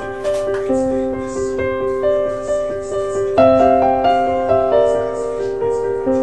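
Background piano music, with notes struck about twice a second over held chords.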